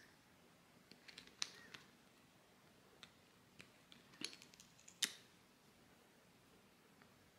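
Light clicks and taps of hands handling a glass dropper bottle and its screw-on dropper cap. A few come about a second in, and a quick cluster between four and five seconds in ends in the loudest click.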